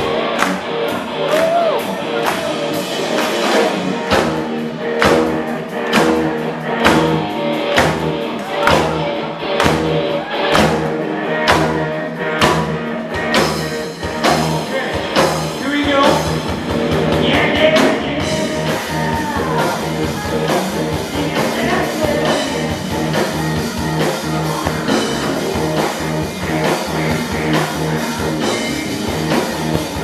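A rock band playing live: electric guitars, keyboard and drum kit, with a male singer. A steady kick-drum beat comes in about four seconds in.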